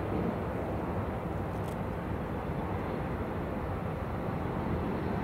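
Distant jet engine rumble of an Airbus A320-214 on final approach with its landing gear down, its CFM56 turbofans heard as a steady, noisy rumble that grows slightly louder near the end.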